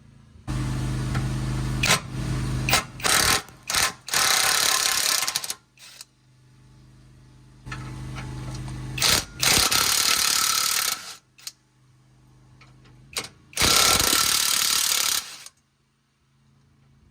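A power tool running in several bursts of one to a few seconds each, with gaps between, undoing the 12 mm bolts on the handbrake cable brackets.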